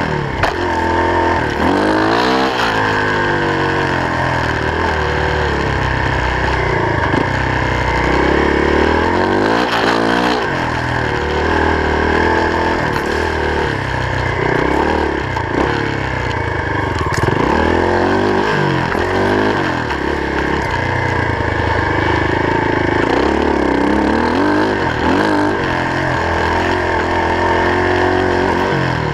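Off-road vehicle's engine running under way, its pitch rising and falling over and over as the throttle is opened and eased.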